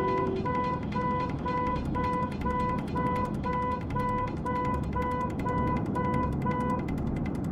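Repeated electronic beeping, about two beeps a second, over a steady rumbling noise; the beeping stops near the end.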